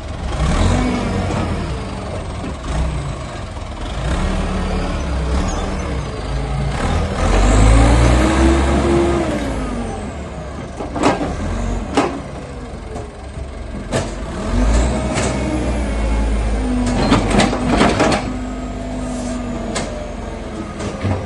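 Diesel Perkins engine of a JCB 3CX backhoe loader running, its revs rising and falling several times, with a handful of sharp metallic knocks in the second half.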